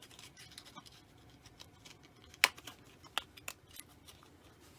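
Small sharp clicks and taps of small magnets and their box being handled on a workbench, with one louder click about two and a half seconds in.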